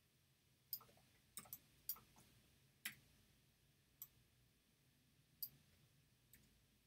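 Faint, irregular clicking of a computer mouse and keyboard, about nine short clicks spread unevenly, over a faint low room hum.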